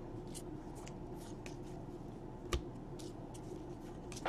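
Baseball trading cards being flipped one by one in the hands: faint swishes and soft clicks of card sliding against card, with one sharper tap about two and a half seconds in.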